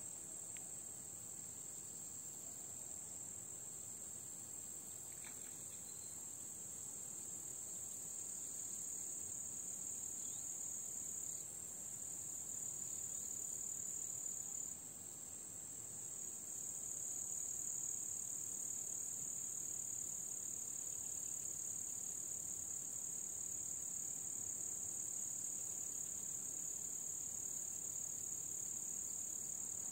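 Steady, high-pitched chorus of stridulating insects, a continuous buzzing trill that grows a little louder past the middle.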